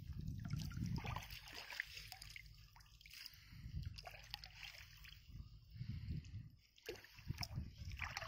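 Shallow water splashing and sloshing as hands pull a fishing net through it and grope in the water for fish, over a low uneven rumble.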